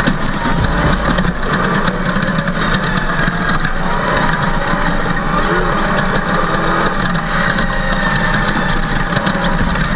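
Chevrolet LS1 V8 engine of an off-road race buggy running hard at speed, loud and steady, its pitch rising and falling slightly with the throttle.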